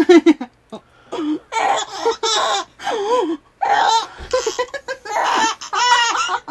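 Baby laughing heartily in a string of short, high-pitched bursts.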